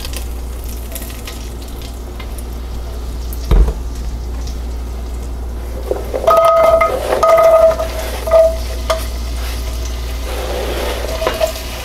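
Hot butter and olive oil sizzling steadily in an enameled Dutch oven, with a single thump a few seconds in. About halfway through comes a run of short squeaky scrapes as diced carrots and onion are pushed off a cutting board into the pot.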